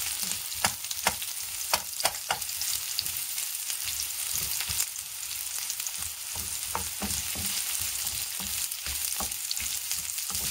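Onion, ginger and garlic sizzling in hot oil in a non-stick frying pan as they are sautéed and stirred with a wooden spatula. A steady hiss with scattered sharp clicks, most of them in the first couple of seconds.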